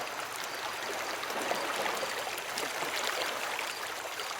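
Gentle water ambience of the harbour: a steady trickling and lapping of water.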